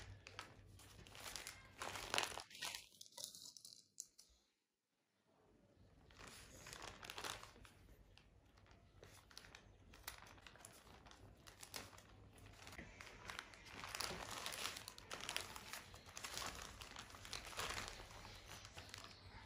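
Plastic courier mailer bag crinkling as it is handled and cut open with scissors, in faint irregular rustles, with a brief near-silent break about four seconds in.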